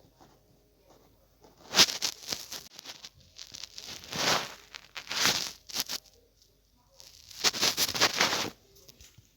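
Rustling and crinkling handling noise in four bursts, the loudest near the start and near the end.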